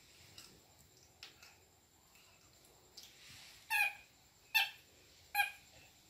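A baby monkey giving three short, high squeaks about 0.8 s apart in the second half, with a few faint clicks before them.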